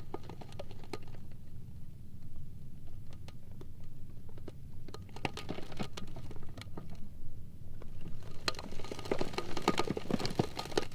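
Sea ice floes slowly rubbing against each other: a low rumble with scattered sharp ticks and cracks, building from about eight seconds in to a denser run of creaking and squeaking.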